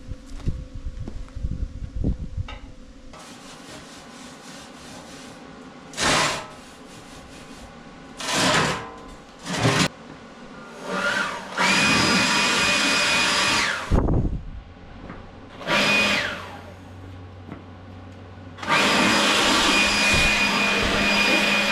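Electric power tool run in repeated bursts: a few short blips, then three longer runs of a second or two, each with a steady motor whine over a hiss that starts and stops sharply.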